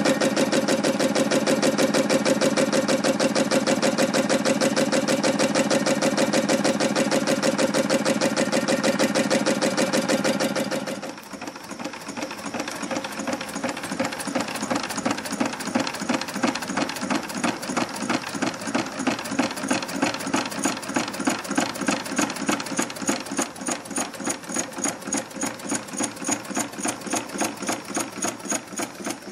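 Home-built diaphragm Stirling engine running, its crank and displacer linkage clattering in a fast, even rhythm. A louder steady hum over the clatter stops abruptly about eleven seconds in, leaving the pulsing mechanical clatter alone.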